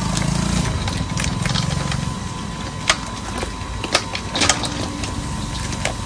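A small engine running steadily, with a few sharp clicks about halfway through.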